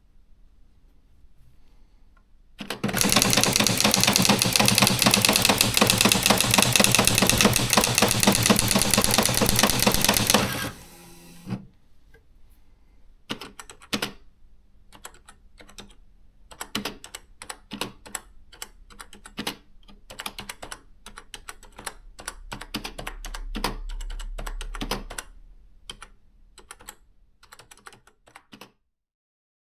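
Olivetti ET Compact 60 electronic daisy-wheel typewriter printing. A few seconds in comes a long, loud, very fast run of strikes lasting about eight seconds. Slower separate key strikes with pauses follow, with a low hum from the machine under them for a couple of seconds near the end.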